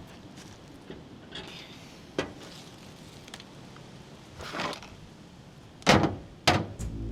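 A few sharp knocks over a quiet background, the two loudest about half a second apart near the end.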